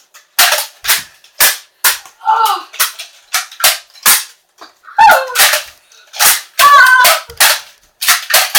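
A rapid run of short, hissing toy-gun shot sounds in a Nerf blaster fight, about two a second, with a boy's shouts breaking in a few times.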